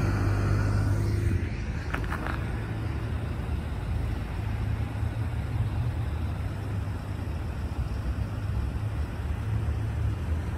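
A utility bucket truck drives past on the road with its engine running, its pitch rising, then fading away about a second and a half in. A steady low rumble follows, with a couple of faint clicks about two seconds in.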